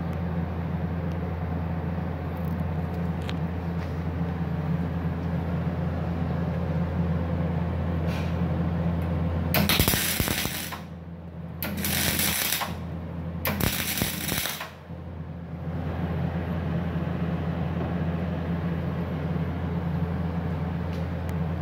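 Migweld 350SEF MIG welding machine switched on and idling with a steady low hum. About ten seconds in come three short bursts of loud crackling noise, each under a second long.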